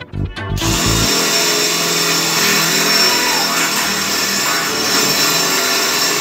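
Cordless drill running steadily with a twist bit boring through square steel tubing. Background music with a beat plays under the first second.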